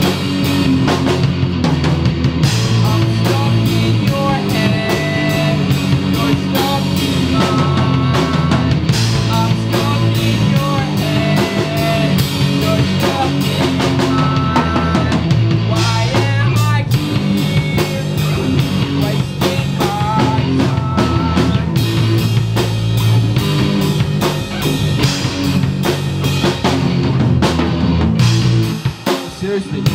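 Live rock band playing: electric guitars, bass guitar and drum kit, loud and continuous, easing off briefly near the end.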